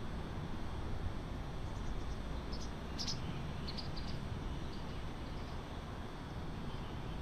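City street ambience: a steady low rumble of distant traffic, with a few brief high chirps about halfway through.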